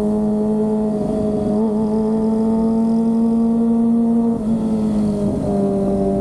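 Kawasaki ZX-25R's 250 cc inline-four engine running at steady high revs while riding. The pitch creeps up slightly, dips briefly about four seconds in, then settles back to a steady note.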